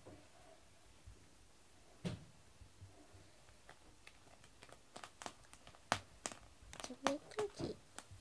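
A cat's paws and body scuffing on foam floor mats as it settles down to lie and roll: a soft thump about two seconds in, then a quick run of small clicks and knocks in the last three seconds.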